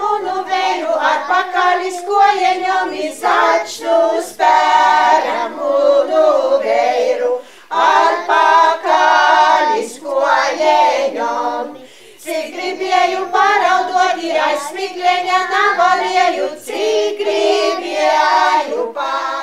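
A Latvian ethnographic folk ensemble of women and girls singing a folk song together, in phrases with short breaks between them.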